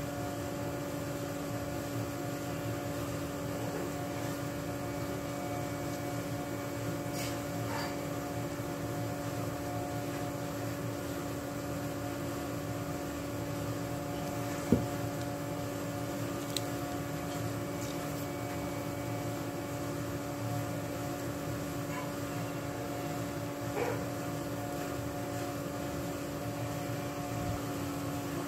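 A steady machine hum with a constant low tone, the sound of a running fan or appliance in the room. One sharp knock stands out about halfway through, with a few faint ticks later.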